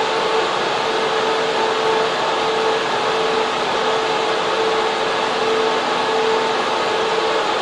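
Data center server room: the steady rush of server cooling fans and air-conditioning airflow, with a steady hum running through it.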